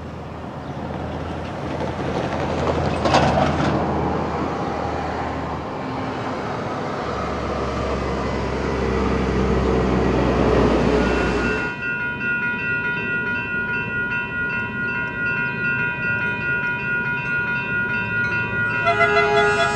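Diesel commuter train running through a station, a steady low engine drone under rail and wheel noise, with a brief sharper sound about three seconds in. About twelve seconds in it cuts off abruptly and background music with sustained notes takes over.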